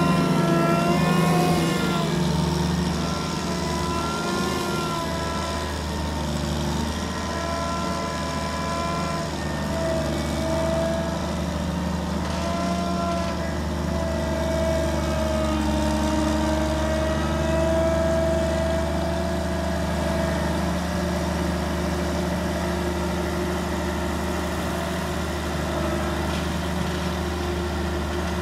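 John Deere 2254 Hillmaster combine harvester's diesel engine running under load, its pitch wavering slowly up and down as it is worked.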